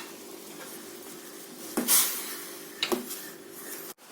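A spoon clinking against a metal tea pot twice, about two and three seconds in, while kadha simmers on a gas stove with a steady low hum.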